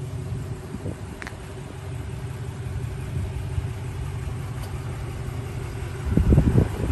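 Ram 2500 pickup's 5.7-litre Hemi V8 idling steadily. A gust of wind hits the microphone about six seconds in.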